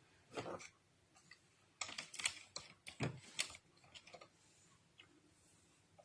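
Addi Express Professional 22-needle plastic knitting machine clicking and clacking irregularly as it is worked slowly by hand, a dozen or so light clicks with short gaps.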